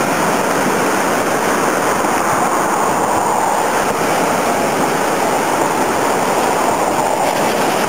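Muddy flash-flood water rushing steadily down a desert wash channel: an even, unbroken rush of fast water.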